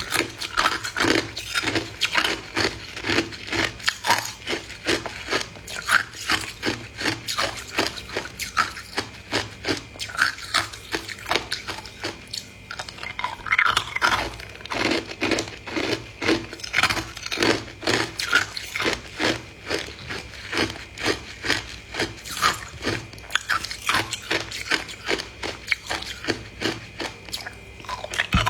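A dense, irregular run of short crunches and scrapes, several a second.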